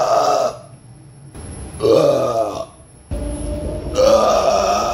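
A man's loud belches, drawn out and deep: one trailing off at the start, a shorter one about two seconds in, and a longer one near the end.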